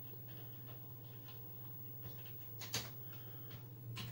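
Scattered faint clicks of buttons being pressed to scroll through menus, with a sharper click a little under three seconds in and another near the end, over a steady low hum.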